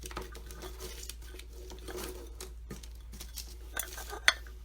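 Light rustling and small ticks of floral wire being handled, with one sharp click about four seconds in.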